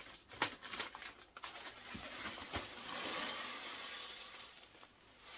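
A few light knocks and clicks of plastic containers, then about three seconds of dry, granular rustling as loose potting-mix material, such as perlite, is scooped and poured.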